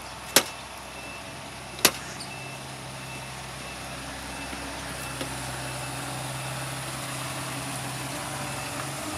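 Low steady engine hum with a faint high beep repeating at a steady pace: the reversing alarm of a garbage compactor truck backing up. Two sharp clicks, the loudest sounds, come in the first two seconds.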